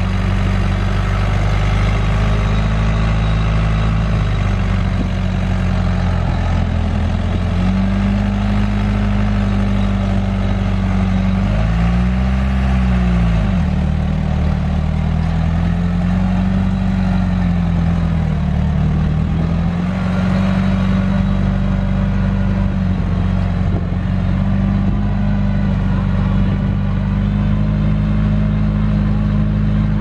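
Diesel engine of a small Komatsu crawler bulldozer running hard as it works dirt, its note sagging and recovering several times under load, most sharply about twelve seconds in.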